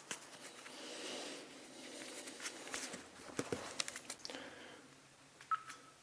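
Footsteps crunching and scuffing over loose ground with scattered clicks, fading out after about four and a half seconds. A short high squeak follows near the end.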